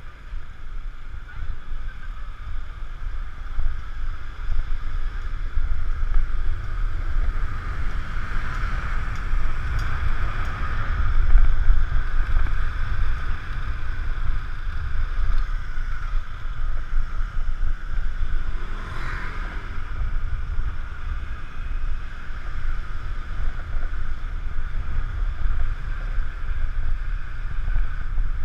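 Wind rumbling across the microphone of a camera riding on a moving motor scooter, with the scooter's engine running underneath. The noise stays steady throughout and swells a little partway through.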